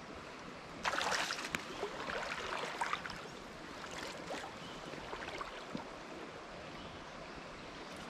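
Water splashing as a wader steps through a shallow creek, loudest from about a second in for two seconds, over the steady rush of the flowing stream.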